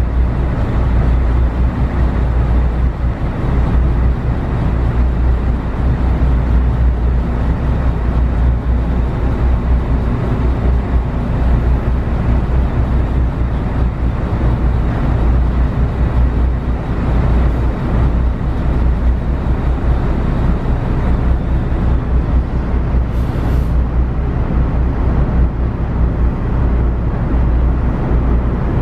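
Steady low rumble on board a car ferry underway: the ship's engines and motion through the water, with no let-up. A brief high hiss breaks in about 23 seconds in.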